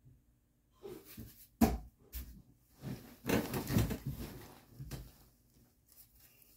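A sharp knock, then a couple of seconds of rustling and shuffling on bedding as a child climbs onto a bed and settles.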